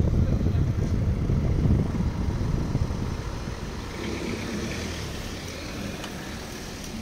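Low wind rumble on the microphone of a moving bicycle, easing after about three seconds, with car engines as cars drive slowly past.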